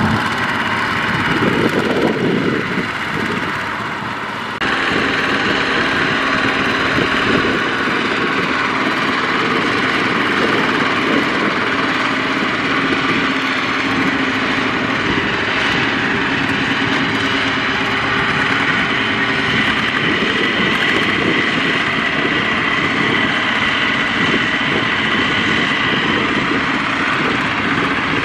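Kubota ZT155 single-cylinder diesel engine of a two-wheel walking tractor running steadily while hauling a trailer through mud. The sound changes abruptly about four and a half seconds in, then runs on evenly.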